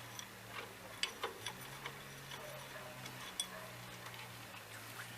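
Scattered light metallic clicks and clinks of hand tools and bolts during work on a tractor clutch, irregularly spaced, over a faint steady low hum.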